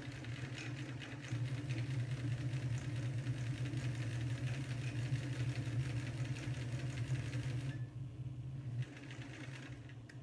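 Domestic electric sewing machine running, stitching through thick sweater knit with a rapid, even needle rhythm over its motor hum. The stitching stops near the end and the motor winds down about a second later.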